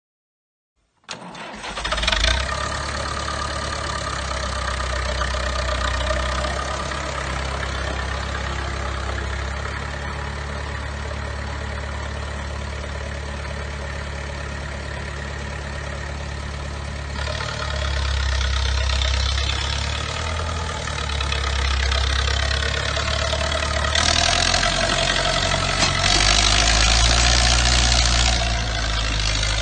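International B275 tractor's four-cylinder diesel engine running steadily as the tractor drives off. It comes in abruptly about a second in, and gets louder twice later on as the tractor pulls away.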